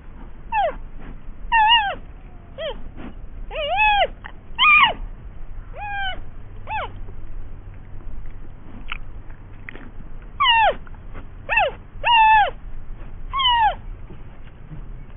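An animal calling repeatedly: over a dozen short pitched cries, each rising and then falling in pitch, irregularly spaced, with a lull in the middle.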